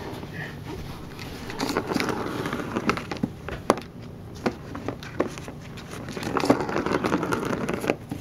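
A plastic ball rolling round the channel of a circular cat track toy, rattling in two stretches, with sharp knocks in between as a kitten bats at the ball and its paws hit the plastic rim.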